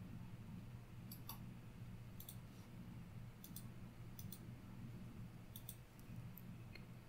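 Computer mouse button clicks, short and sharp, mostly in quick pairs, about six times over a few seconds, against a low steady hum.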